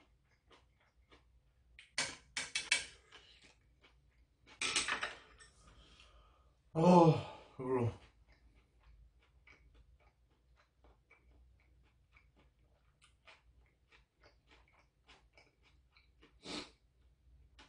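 Mukbang eating sounds: a few sharp clicks of metal chopsticks against a saucepan, then a breathy slurp of hot soup. The loudest sound is a voiced sigh falling in pitch, followed by faint chewing and a short breath near the end.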